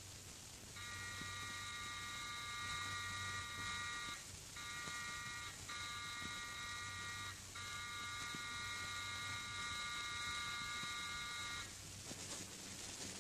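Electric doorbell buzzer sounding four times in close succession: a long buzz, two short ones, then another long one, each a steady high-pitched drone. Someone is at the front door.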